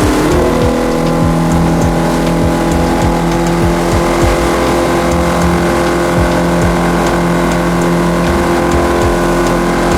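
Fishing boat's engine running steadily under way, its pitch stepping up slightly about half a second in, with the wash of the sea and wind behind it.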